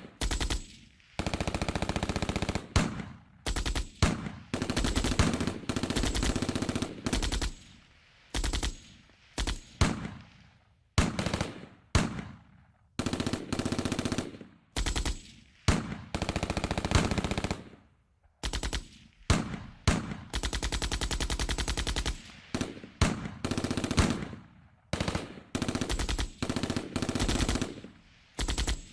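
Machine-gun fire sound effect: bursts of rapid automatic fire, some short and some lasting two to three seconds, separated by brief pauses as each burst's tail fades away.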